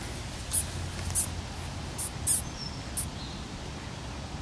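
A mouse squeaking in distress as a cat bats it about: five short, very high-pitched squeaks over about three seconds, one of them falling in pitch. Faint bird chirps are heard in the background.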